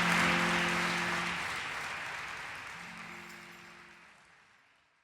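Audience applause fading out, with a few held low instrument notes sounding under it twice before the sound fades to nothing.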